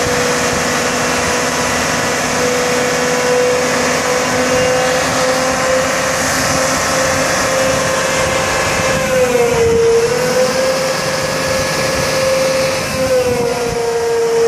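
CAT 745C water truck's C18 diesel engine running steadily, driving the hydraulic water pump while it sprays, with a steady whine over the hiss of the water jets. The pitch dips briefly about nine and a half seconds in and again near the end.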